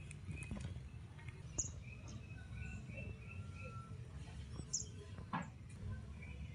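Small birds chirping with short repeated calls, including two brief high chirps, over a steady low rumble, with a faint click about five seconds in.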